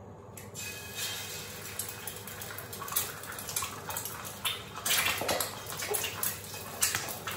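Egg frying in hot olive oil in a frying pan: the oil starts sizzling about half a second in as the egg drops in, with a dense crackle of spattering pops that grows louder and busier a few seconds later.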